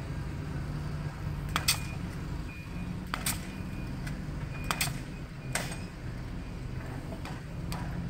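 Framing nail gun firing nails into wooden roof trusses: about six sharp shots, two in quick succession, over the steady low hum of an engine.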